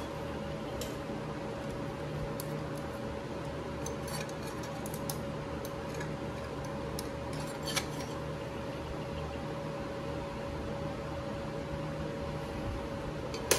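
Light metallic clicks and clinks of clutch steels and friction plates being hooked out of a Harley-Davidson Shovelhead's clutch basket with a pick tool: a cluster about four seconds in, another near eight seconds, and the loudest click near the end, over a steady background hum.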